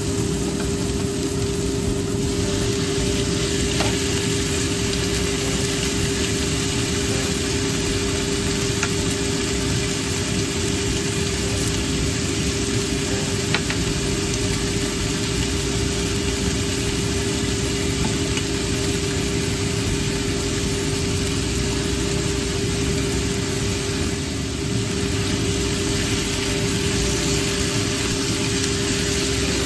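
Shallots, ginger and chicken livers sizzling in hot oil in a nonstick frying pan, stirred with a silicone spatula. A steady low hum runs underneath.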